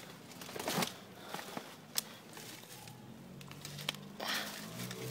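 Footsteps crunching through dry leaf litter and debris, with scattered crackles and clicks. From about three seconds in, faint music with steady low notes comes in beneath them.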